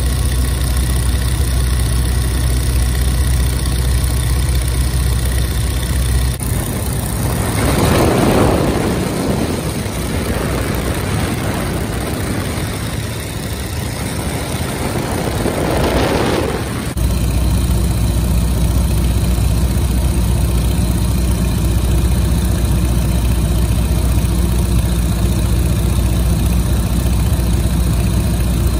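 Biplane engine running with a steady low drone. Between about 6 and 17 seconds in, the drone gives way to a rushing noise that swells and fades twice, then the steady drone comes back abruptly.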